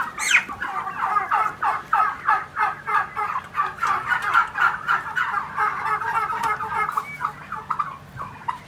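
Young Huba-breed turkeys calling: a dense run of quick, short, overlapping calls, several a second, thinning out near the end.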